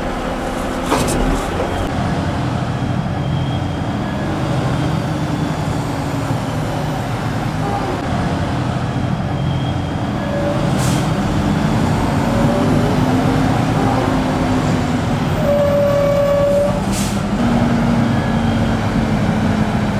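Heavy diesel engines of farm machinery running under load, their pitch rising and falling as they rev. A brief steady high tone sounds about three-quarters of the way through.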